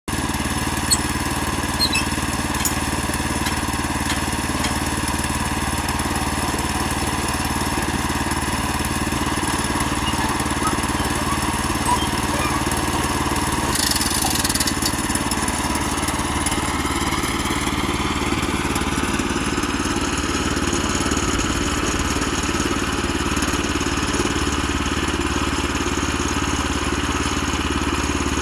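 Woodland Mills HM122 portable band sawmill running steadily, its small gas engine and band blade sawing a log into siding boards. A whining tone climbs in pitch about two-thirds of the way through.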